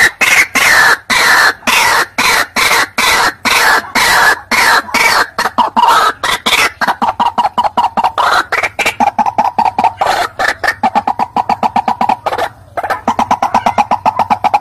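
White-breasted waterhen calling: a loud, fast run of harsh repeated notes, several a second, settling to a steadier pitch partway through, with a brief break near the end.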